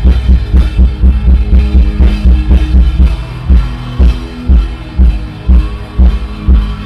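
Music with a heavy, deep drum beat and sustained pitched chords above it. The beat runs at about four a second at first and drops to about two a second around halfway through.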